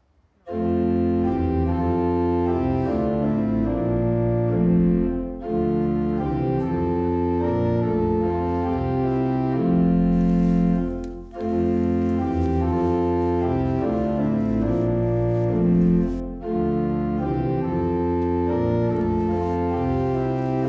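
Organ music, slow sustained chords played in phrases, starting about half a second in and pausing briefly between phrases about five, eleven and sixteen seconds in.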